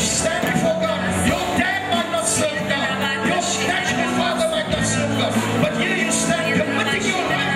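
Worship music with singing and sustained low bass notes, played continuously.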